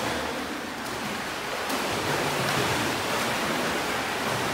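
Steady splashing of children kicking through pool water as they swim on their backs.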